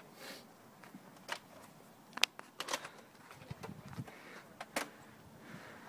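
Phone camera being handled and passed between hands: faint rubbing with a handful of separate, irregular sharp clicks and taps.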